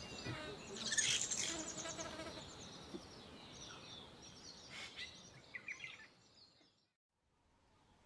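Common starlings chirping at their tree-hole nest, with a quick run of high calls about a second in and scattered calls after it. The calls fade and cut off about six seconds in.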